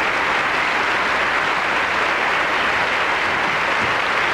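Large indoor crowd applauding steadily, a dense, even wash of clapping.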